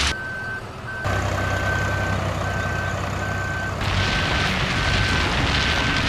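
Vehicle reversing beeper sounding a steady series of short, even, high beeps, a little more than one a second, over a continuous low rumble and hiss.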